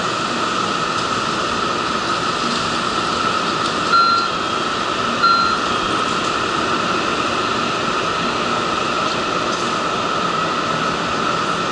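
Steady hum and hiss of a Shinkansen station platform, with the train standing alongside. Two short electronic beeps come about four seconds in, a little over a second apart.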